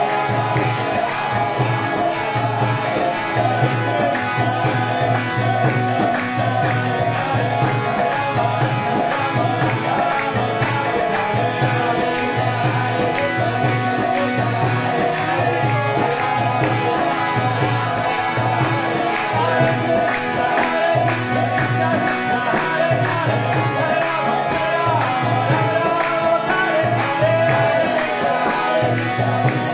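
Kirtan music: a man singing a devotional chant over instrumental accompaniment, with a steady jingling percussion beat keeping time.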